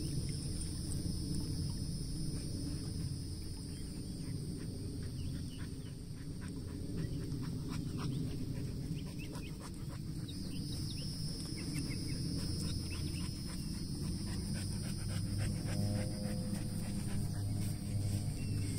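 A husky panting, over a steady low rumble.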